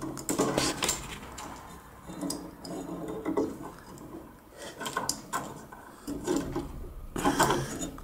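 Hands working wire connectors at the magnetron terminals inside an opened microwave oven: irregular clicks, scrapes and rubbing of metal terminals, wires and the sheet-metal chassis.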